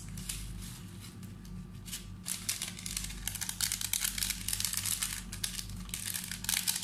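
Small packet of Magic Sarap seasoning crinkling and tearing as it is torn open and squeezed by hand, a dense run of crackly clicks that thickens about two seconds in and again near the end. A steady low hum lies under it.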